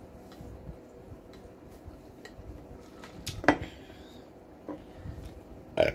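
Close-up mukbang eating sounds: a straw sip from a stainless steel tumbler and small wet mouth clicks over a faint steady hum. A sharp knock about three and a half seconds in fits the tumbler being set down on the table, and another short sharp sound comes near the end.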